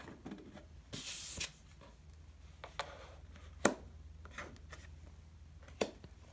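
Baseball trading cards being handled and sorted on a wooden tabletop: a short rub of a card sliding about a second in, then a few soft taps as cards are set down.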